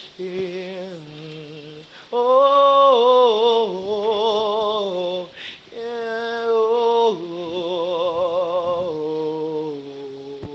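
A man singing a wordless gospel ad-lib in long held notes with wide vibrato. He sings about four phrases, and the loudest starts about two seconds in.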